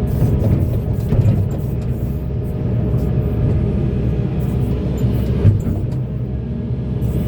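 Volvo EC480DL excavator's diesel engine running steadily under working load, with scattered metallic clanks and one sharp knock about five and a half seconds in.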